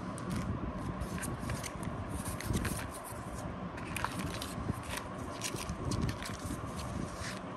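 Paper rustling with irregular light clicks and scrapes as gloved hands lift paper-wrapped card packets out of a metal tin, over a steady background hum.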